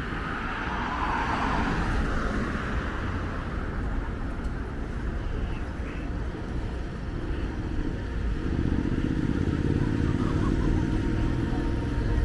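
Road traffic passing, with a motor vehicle's engine running steadily and growing louder over the last few seconds.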